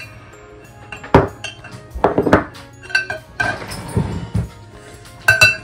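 Metal wire potato masher clinking and knocking against a glass mixing bowl as cooked potatoes are mashed: a series of irregular strikes, some with a brief glassy ring, the loudest near the end.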